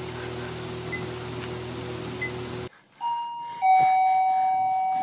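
A steady low drone cuts off abruptly a little past halfway. Then an electronic doorbell chimes a falling two-note ding-dong.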